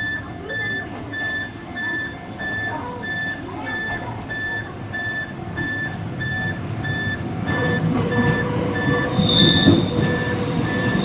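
Electronic warning buzzer of a level crossing at Dōhōji station on the Hokuriku Railway Ishikawa Line, beeping in an even rhythm about three times a second. About seven seconds in, the rumble of an arriving train builds underneath, with a brief high wheel squeal near the end.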